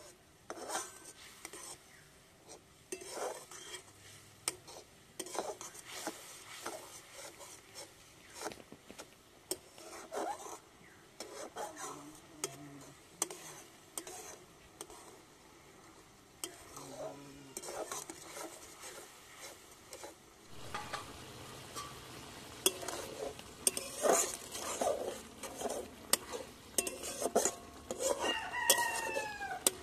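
A long steel ladle stirring and scraping curry in a steel wok, irregular scrapes and clinks of metal on metal, louder and busier about two-thirds of the way through, with a sizzle from the cooking pan under them. A short falling call cuts in near the end.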